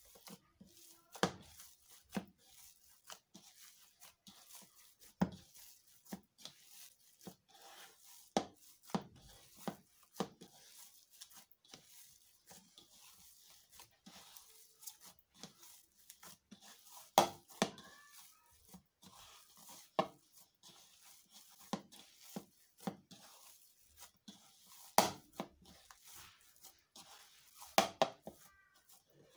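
Bare hands kneading and squeezing a spiced mashed-potato mixture in a bowl: soft squelching and rustling, broken by irregular sharp knocks, a handful of them much louder than the rest.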